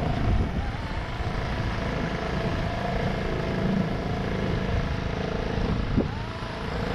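Small outboard motor running steadily as it drives an open boat along, with water noise and wind on the microphone; the engine note shifts briefly near the end.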